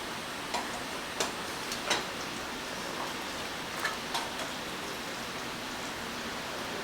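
A handful of light, scattered clicks and taps from small hand tools at a watch bench, over a steady background hiss.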